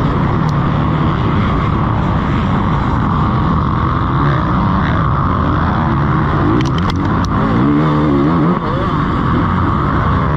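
Off-road motocross bike engine revving hard, its pitch rising and falling as the throttle and gears change, heard from the rider's helmet. A few sharp ticks come about seven seconds in, followed by a quick climb in revs and a brief drop in loudness.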